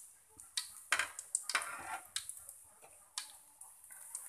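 Hot frying oil in a wok crackling and popping irregularly as fried fish drains above it, with two short louder scraping sounds about one and two seconds in from the metal spatula in the pan.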